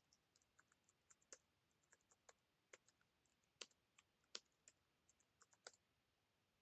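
Faint, irregular keystrokes on a computer keyboard as a command is typed, a few clicks louder than the rest.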